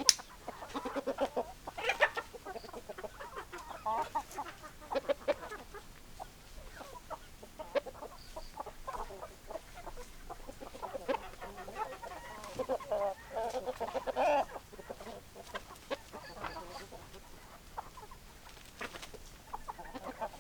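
A flock of hens clucking, a string of short, irregular clucks that grows busier and louder about two-thirds of the way through. A sharp click at the very start.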